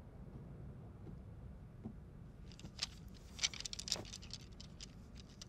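Quiet room tone with a low hum, broken about halfway through by a short run of small clicks and light rattles.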